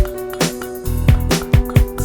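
Background music: an instrumental funk-style track with drums, bass and guitar keeping a steady beat.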